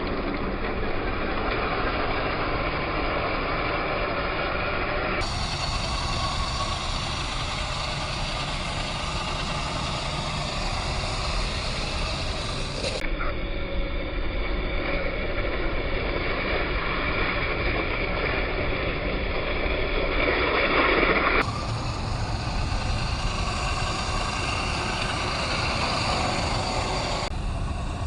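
A scale RC crawler's brushless motor and geared drivetrain whining steadily as it drives over rough ground, the tyres scrabbling on the surface. The sound changes abruptly at several points.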